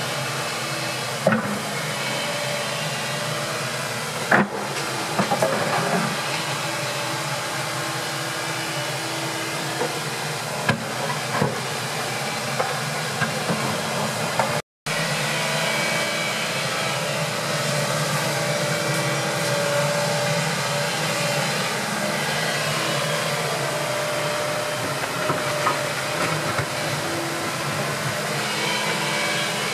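Hitachi compact excavator's diesel engine running steadily as it digs, with a few sharp knocks in the first half. The sound cuts out briefly about halfway through.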